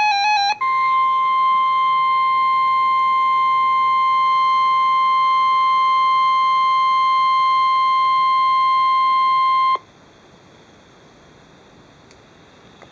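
Emergency alert broadcast: a brief warbling data burst, then the steady single-pitch weather-radio warning alarm tone, about 1050 Hz, held for about nine seconds and cut off abruptly. After the tone comes a faint radio hiss.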